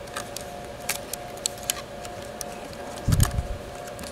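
Small scattered clicks and taps of fingers handling the ribbon cable and wires inside a Panasonic Toughbook CF-30, with a dull thump about three seconds in, over a faint steady hum.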